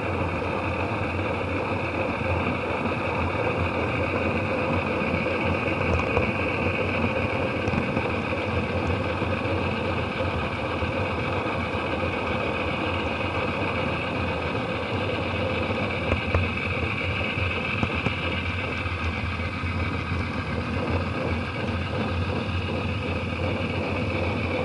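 Steady rolling rumble and hum of a model train running along its track, heard from a car riding in the train through an action camera's waterproof case: wheels on the rails and the locomotive's motor, even and unbroken.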